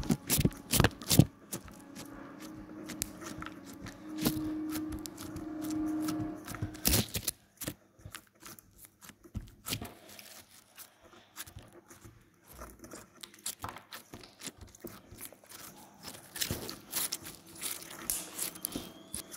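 Slime being squeezed and stretched by hand, giving irregular sticky pops, crackles and squelches that are busiest in the first half and thin out after.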